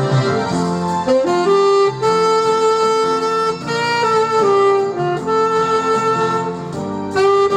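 Saxophone playing a slow melody of long held notes that move in steps every second or two, over a backing accompaniment track.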